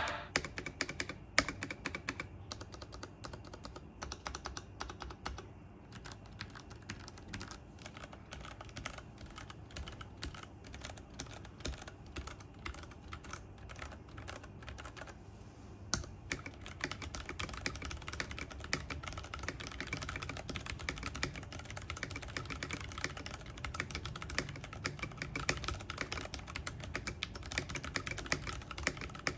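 Typing on an IQUNIX F97 mechanical keyboard: separate, irregular keystrokes at first, becoming a faster, denser run of clicks about halfway through.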